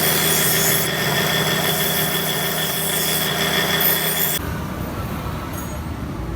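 Steady machine noise with a high whine, which changes abruptly about four seconds in to a lower, rougher rumble.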